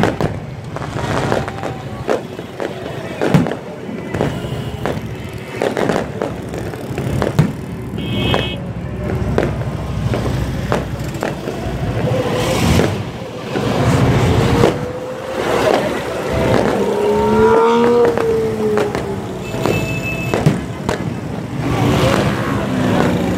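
Aerial firework shells bursting overhead, a string of sharp bangs and crackles at irregular intervals over a continuous background din.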